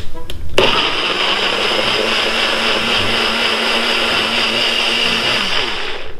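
Personal push-down blender running with its cup turned upside down on the base, blending strawberries and yogurt. It starts about half a second in, runs steadily, and cuts off just before the end.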